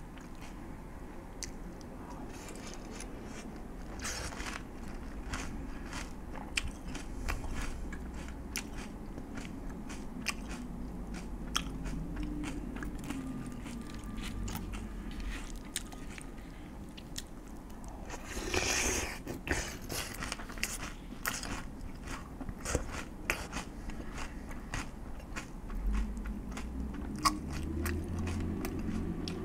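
Close-miked chewing and crunching of food, a steady run of small irregular crackles and clicks from the bites. About two-thirds of the way through comes a louder, longer scratchy rustle.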